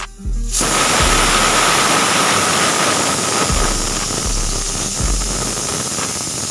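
Pressure cooker whistle blowing off steam: a loud steady hiss that starts suddenly about half a second in, with a faint whistling tone in its first seconds. Low bass notes of background music run underneath.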